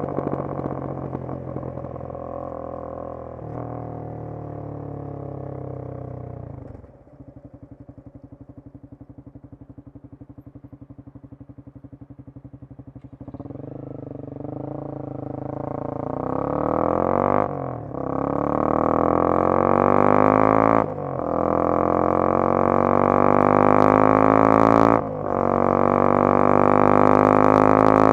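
Honda CBR250R's single-cylinder engine slowing and idling with even firing pulses for about six seconds, then pulling away and revving up through the gears, the pitch climbing and dipping briefly at each of three or four upshifts.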